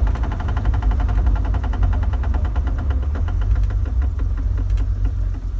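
1997 Jeep TJ with its 4.0L inline-six running, over it a fast, even clicking of many clicks a second that slows and thins out and stops near the end, leaving a steady engine rumble. The clicking began after a transfer case fluid change.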